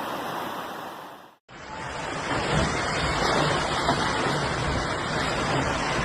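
Rushing floodwater from a burst dam, heard as a steady noise of water. About a second and a half in it cuts off abruptly, and a louder, steady rushing noise follows.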